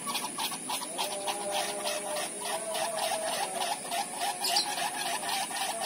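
Bamboo wind propellers (kolecer) spinning in the wind: a humming drone that rises slightly in pitch about a second in, with a fast, even pulse of about six beats a second from the turning blades. A steady high insect drone runs underneath.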